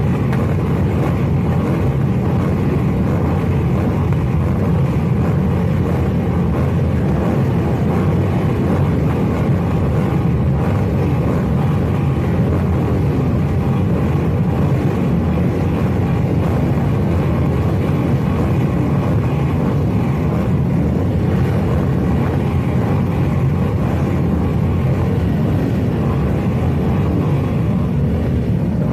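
Many motorcycle engines running at once as their riders rev them, a loud continuous low rumble with overlapping revs rising and falling in pitch.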